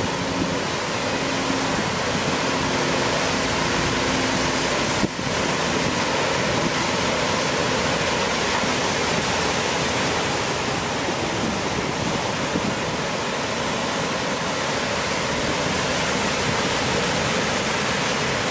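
Steady, even rush of ocean surf, with one short click about five seconds in.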